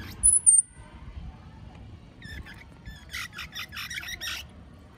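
Baby squirrels calling: a sharp, very high squeak just after the start, then a few short chirps and a fast run of chirps from about three seconds in.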